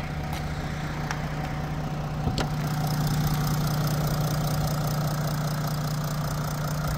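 Audi 3.0 V6 TDI diesel engine (CRT, 200 kW) idling steadily, its timing freshly replaced and free of the earlier rattle. The diesel injectors click lightly, which the mechanic puts down to poor local fuel; diagnostics show the injector values in order.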